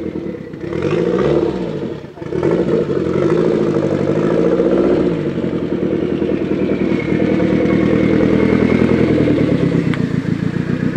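Tuned Zastava Yugo rally car's engine revving up and down as it drives in, with a short dip about two seconds in, then running at steady high revs as it comes close.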